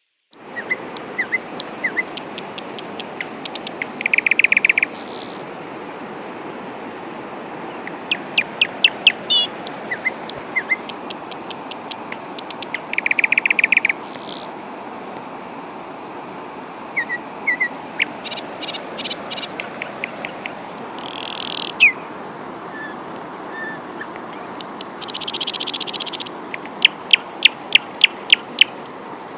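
Steady rain hissing, with several birds calling over it: runs of quick chirps and a buzzy trill twice.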